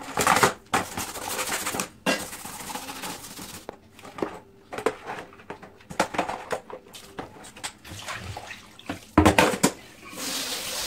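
Toothbrush scrubbing a metal mesh range-hood grease filter in a plastic basin of soapy water, with splashing and the filter knocking against the basin; a louder knock about nine seconds in.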